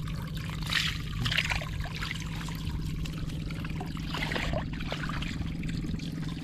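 Water pouring and trickling out of a fish-trap enclosure as it drains, with a steady low hum underneath. There are splashes about a second in and again about four seconds in.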